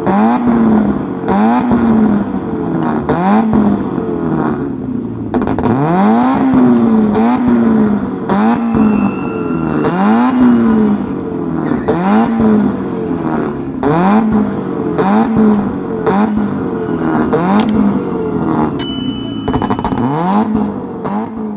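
Hatchback car engine revved in repeated blips, about one a second, with sharp exhaust pops and crackles between the blips; flames show at the tailpipe.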